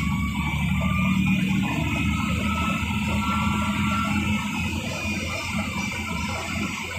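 KSRTC bus's diesel engine and tyre noise heard from inside the cabin: a steady low rumble with an engine hum that fades out about four and a half seconds in.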